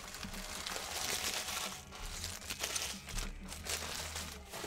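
Plastic wrapping crinkling and tearing as a sealed box or pack of baseball cards is opened.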